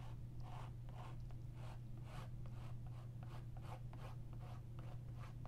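White chalk scratching across a toned canvas in short quick strokes, about three a second, with a steady low hum underneath.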